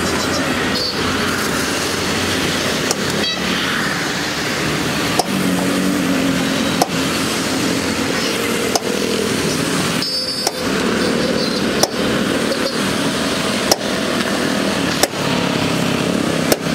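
Small Toyota hatchback driving slowly around a dirt lot, engine running, amid steady street traffic noise, with occasional sharp clicks every second or two.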